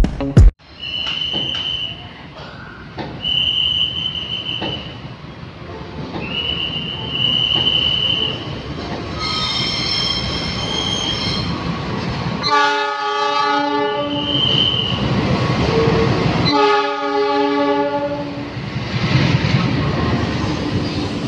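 A diesel locomotive hauling a passenger train through a station. High steady squeals come first, then two loud horn blasts, each about a second and a half long and about four seconds apart, then the rumble of the carriages rolling past.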